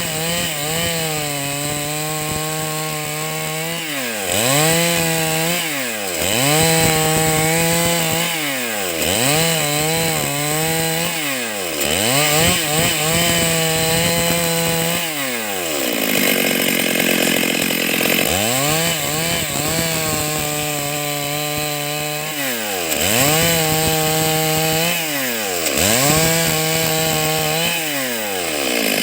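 Stihl MS 382 two-stroke chainsaw running at high revs while cutting boards from a log, the engine note dropping sharply and climbing back again about eight times as the throttle is eased and reopened.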